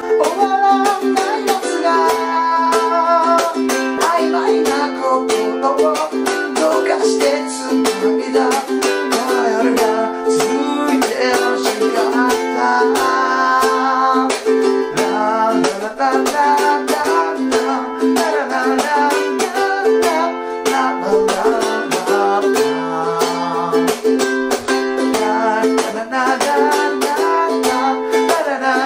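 G-Labo custom ukulele strummed in a sixteenth-note pattern with muted chuck strokes, cycling through F, G7, Am and Em7, while a man sings the melody along with it.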